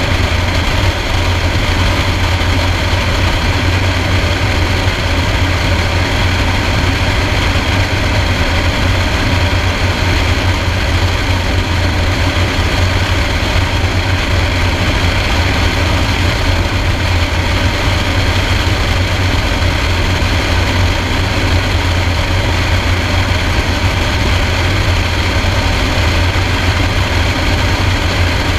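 Small single-engine propeller plane's piston engine running steadily in level flight, a constant low drone with steady wind rush over the outside-mounted microphone.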